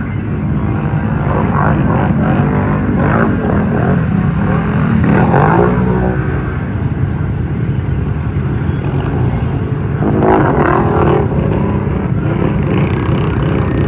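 Several ATV and side-by-side engines running at once, their revs rising and falling over and over as the machines churn through mud and water.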